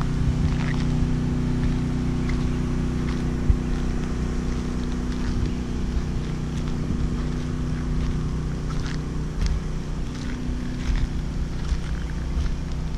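A 7000-running-watt portable gasoline generator running under load with a steady, even engine hum. A few light knocks sound over it, the sharpest about three and a half seconds in.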